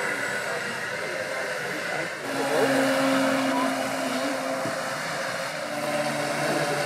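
Radio-controlled model speedboat running fast across the water, its motor giving a steady hum that shifts in pitch a couple of times as the boat turns, over a hiss of water and wind.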